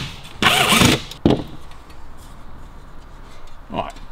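Cordless drill-driver running in a short burst, driving a screw through a thin aluminium panel into a wooden board, with a shorter second burst just after.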